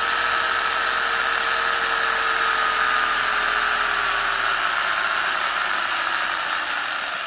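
Brushless electric motor and drivetrain of a Subida Mantis RC buggy running at full throttle: a steady high whine whose pitch sinks slowly, starting to fade near the end.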